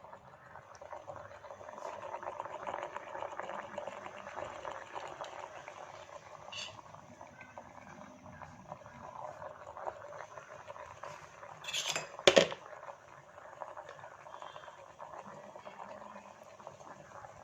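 Electric steamer-vaporizer boiling its water, giving a steady bubbling hiss as it puts out steam. There is a sharp clatter about twelve seconds in.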